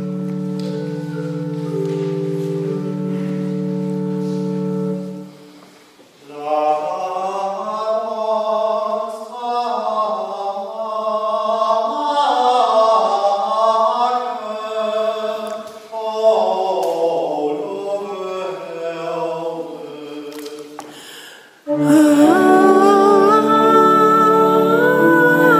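Church organ holding chords, which stops about five seconds in; then voices sing unaccompanied for about fifteen seconds, and near the end the organ comes back in loudly with full chords and a melody line.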